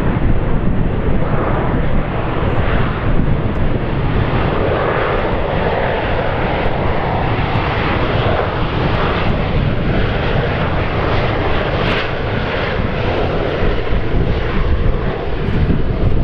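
Jet engines of a Boeing 737-800 (CFM56) running loud as the airliner rolls along the runway. The sound is a steady, dense jet rush with a deep rumble underneath.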